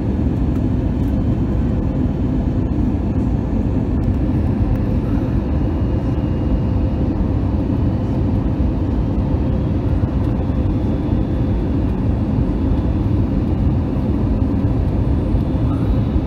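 Steady cabin noise of an airliner in flight: a constant drone of jet engines and rushing air, strongest in the low range, with a faint steady hum.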